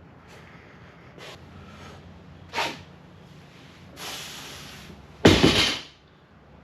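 A man breathing hard from exertion: a few short, sharp sniffs and puffs, then a long hissing exhale about four seconds in. About a second later comes a loud, forceful blow of breath, the loudest sound here.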